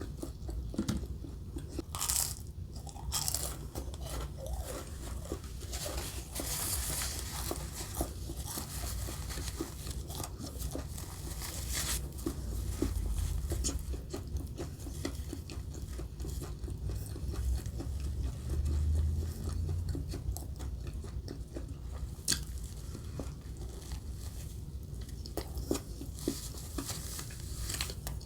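A person eating fast food: crisp bites, crunching and chewing, with many irregular small crackles.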